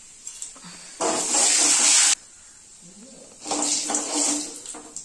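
Hot oil sizzling and spluttering in a wok as mustard seeds pop and tempering ingredients are dropped in. A loud hiss starts suddenly about a second in and cuts off abruptly a second later, then a second, softer stretch of hiss comes near the end.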